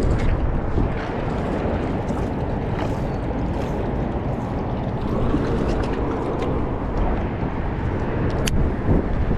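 Wind buffeting the microphone as a steady low rumble, with a few faint clicks and one sharper click near the end.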